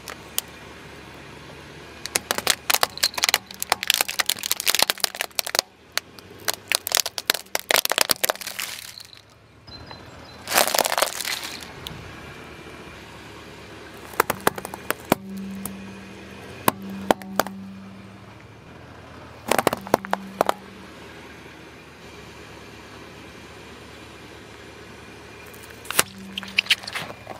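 A car tyre rolls over and crushes plastic felt-tip markers and other small objects, giving several bouts of sharp cracking and snapping with pauses between them. Under it all runs the low steady hum of the car's engine.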